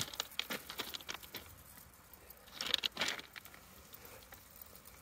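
Footsteps crunching on the gravel ballast of a railway track: scattered small crunches and clicks, with a louder crunching step about two and a half seconds in.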